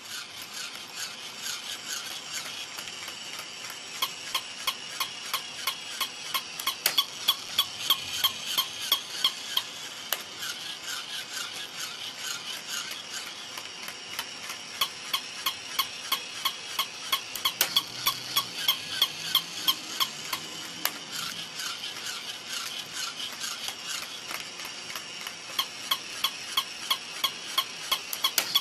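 Mechanical toy poodle running: a fast, even run of clicks from its mechanism with a high squeaky yapping tone pulsing along with them, louder in a few stretches.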